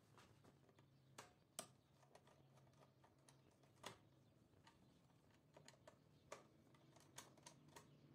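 Faint, irregular clicks and taps of a screwdriver and wire end against the plastic screw terminals of a DIN-rail contactor and load monitoring relay as a wire is connected.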